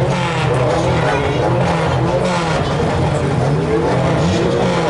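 Racing car engines running and revving on the track, their pitch rising and falling.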